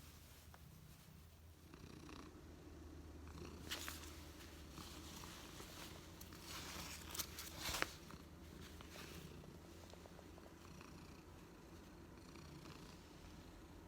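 White-and-tabby barn cat purring steadily. There is brief rustling about four seconds in and a louder cluster of rustles and clicks around seven to eight seconds.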